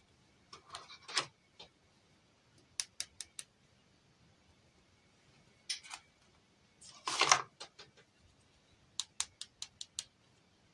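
Light clicks and taps from small toy pieces being handled, in scattered clusters, with a brief louder rustle about seven seconds in.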